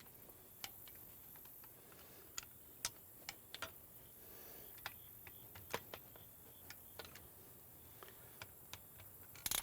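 Faint, irregular light clicks and taps of small metal parts and hand tools being handled on a workbench, with a short rustle near the end.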